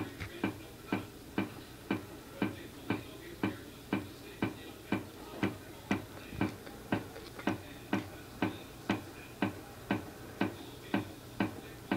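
Clock ticking steadily, about two ticks a second, over a faint low hum.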